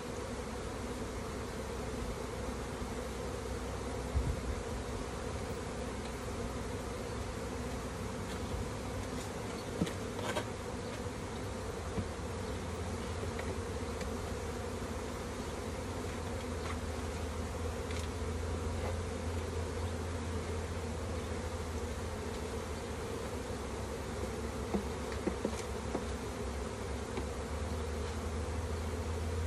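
A mass of honeybees buzzing in a steady drone, with a few light knocks.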